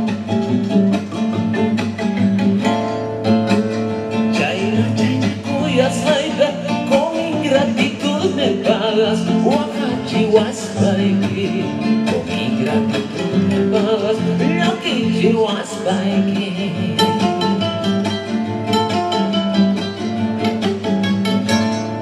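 Live band playing an instrumental huayno passage: a winding lead guitar line over a steady bass and drum beat.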